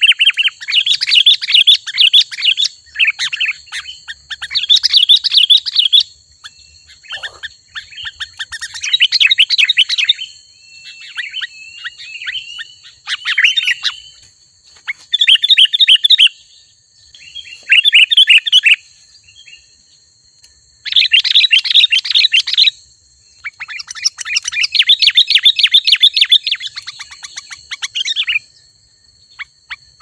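Sooty-headed bulbul giving repeated bursts of fast chattering calls, each a second or two long, with short pauses between them.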